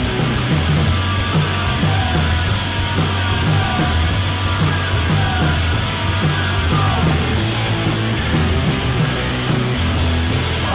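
Punk noise-rock band recording: loud distorted guitars over a bass line that moves between low notes, with drums and cymbals.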